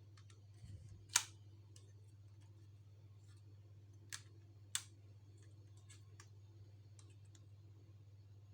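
Sharp plastic clicks from a Lego model AR-15 being handled and worked: one loud click about a second in, two more around four and five seconds in, and faint ticks between, over a low steady hum.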